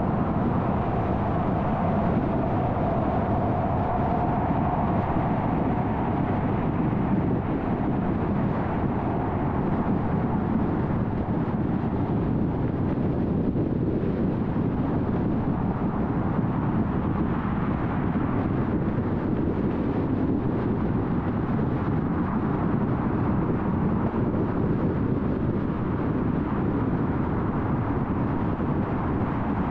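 Steady road noise of a car cruising on a freeway, mostly tyre noise, with a faint higher hum over the first few seconds.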